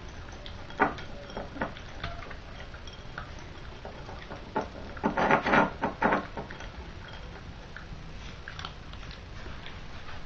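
English bulldog puppy eating dry kibble from a ceramic bowl: scattered chewing and smacking with short clicks and knocks of kibble against the bowl, the loudest cluster of knocks about halfway through.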